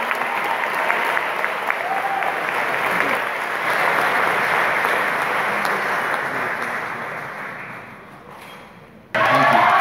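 Audience applause, a dense patter of clapping that fades away over the last few seconds. Near the end it cuts abruptly to louder crowd cheering.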